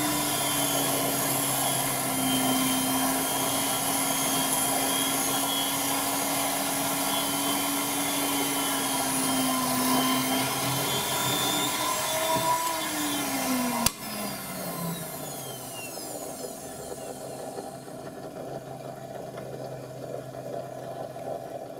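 Benchtop drill press running and drilling through a 5 mm duralumin plate with a twist drill: a steady motor whine with the cutting noise. About two-thirds of the way through there is a sharp click, and the motor's whine falls in pitch and grows quieter as it slows.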